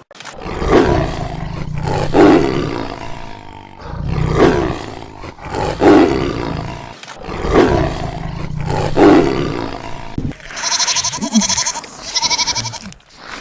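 A big cat roaring: a series of six loud, deep roars about a second and a half apart. Near the end a different animal takes over with a high, quickly trembling bleat.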